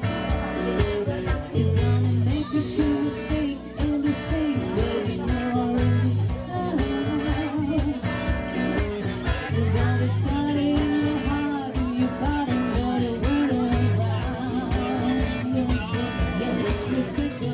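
Live band music with electric bass and electric guitar over a steady beat, and a voice singing.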